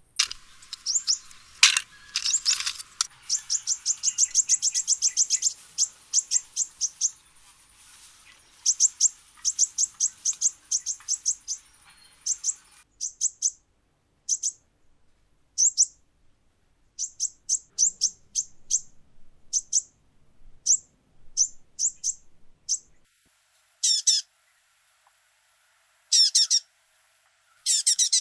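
A small bird chirping: runs of short, high chirps in quick series, with pauses between runs and a denser, louder flurry near the end. A steady hiss sits behind the chirps for the first half and cuts off suddenly.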